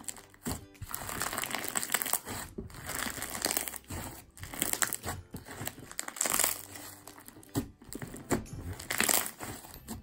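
Fishbowl slime with crunchy fishbowl beads being pressed and squeezed by hand: irregular bursts of crunchy crackling and bubble pops.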